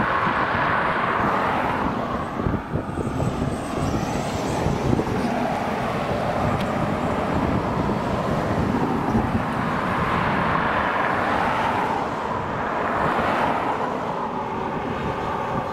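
Steady outdoor engine rumble that swells and eases every few seconds.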